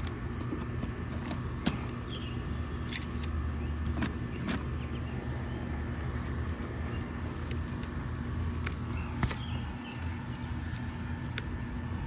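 Metal hand tools clicking and clinking as they are handled and put away in a soft tool bag, a few separate sharp clicks over a steady low hum.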